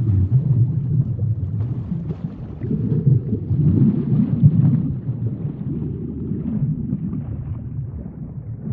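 Sinking-in-deep-water sound effect: a muffled, low underwater rumble and gurgle that swells between about three and five seconds in, then eases off.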